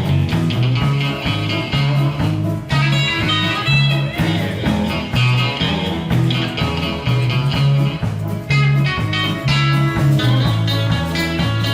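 A country band playing an instrumental break: a plucked-string lead line over an even, pulsing bass line, with no singing.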